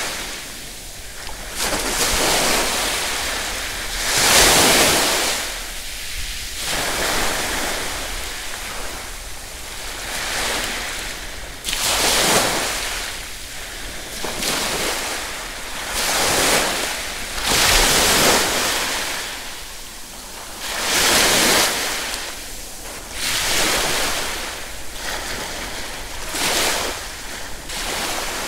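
Ocean waves washing in and drawing back, surging loudly every few seconds.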